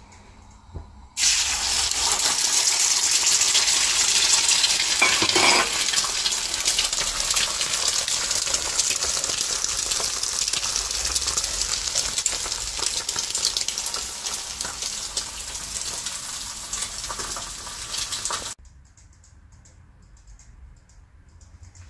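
Eggs sizzling as they fry in a hot frying pan. The sizzle starts suddenly about a second in, eases off gradually, and cuts off suddenly near the end.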